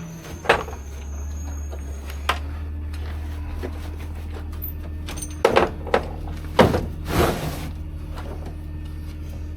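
Garbage truck's diesel engine running with a steady low rumble, with several loud clanks and bangs about half a second in and again between five and seven seconds in, followed by a short hiss.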